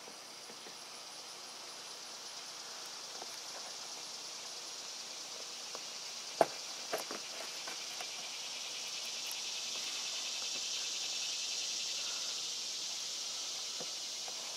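Insects chirring steadily in a high-pitched drone. About six and a half seconds in there is one sharp plastic click, followed by a few lighter knocks, as a plastic cup holder is pressed down into a hole cut in the boat's plastic hull.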